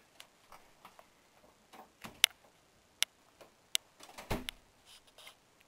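Sharp, scattered clicks in the recording, the loudest three evenly spaced in the middle, over a quiet room, then a single dull thump about four seconds in.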